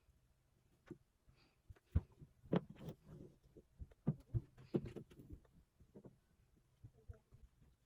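Scattered light clicks and knocks from work at a stained-glass soldering bench, with a few sharper taps standing out about 2 seconds in and again near the middle.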